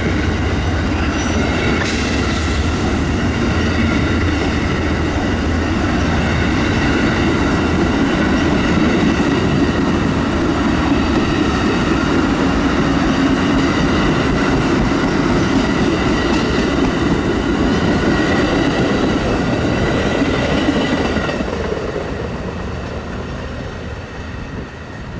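Amtrak passenger train passing at speed: a steady loud rumble of wheels on rail with clickety-clack and several steady high ringing tones over it. The sound fades away over the last few seconds as the train recedes.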